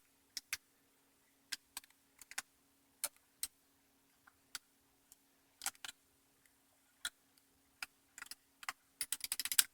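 Scattered sharp plastic clicks and taps from a Roomba's plastic dust cover and housing being handled and fitted into place, ending in a quick run of clicks near the end. A faint steady hum sits underneath.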